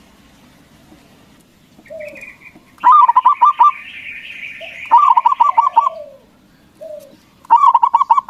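Zebra dove (perkutut) singing: three bursts of quick staccato cooing notes, starting about three seconds in, with higher chirping over the first two bursts.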